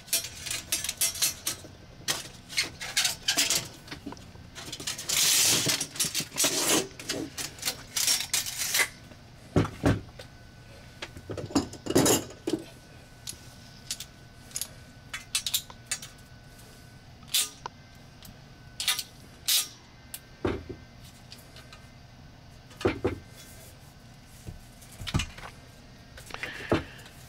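Scattered clicks, taps and light metallic clatter as a tape measure, a length of copper pipe and a tubing cutter are handled on a worktable, with a brief rustle about five seconds in.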